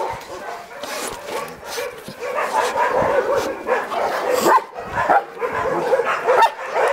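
Several dogs barking and yipping over one another, the calls coming thicker and louder about halfway through.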